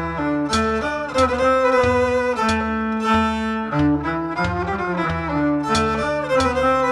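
Six-string violin music: a folk dance tune (a maggot) played as several bowed lines in counterpoint over low, longer-held bass notes.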